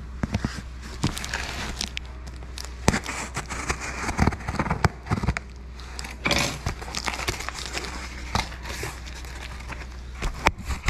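Bubble wrap and plastic packing crinkling and crackling as hands handle a cardboard box, with irregular scrapes and knocks of the cardboard.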